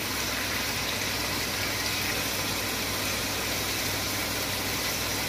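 Chicken breast pieces sizzling steadily as they fry in oil in a pan, over a steady low hum.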